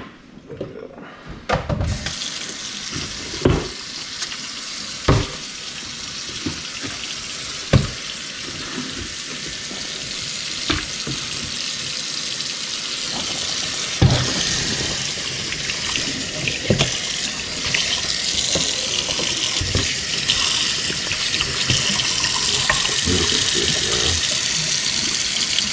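Tap water running into a sink, starting about two seconds in and getting a little louder about halfway through, with scattered knocks and thumps over the flow.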